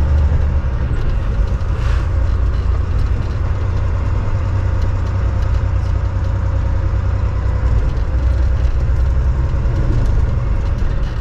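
Semi truck's diesel engine running as the truck drives slowly, a steady low rumble heard from inside the cab along with road noise.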